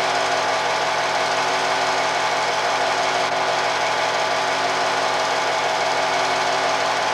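Steady, rapid mechanical clatter and whir of a home-movie film projector running, with a constant motor hum underneath.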